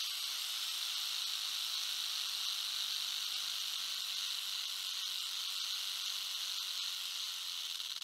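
Rattlesnake tail rattle: a steady, high, dry buzz made of very fast clicks, held at an even level.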